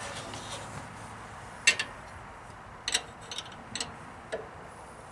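Several short, sharp metal clicks and clinks at irregular intervals, the loudest a little under two seconds in, as a wrench works on hydraulic hose fittings at the tractor's valve bracket.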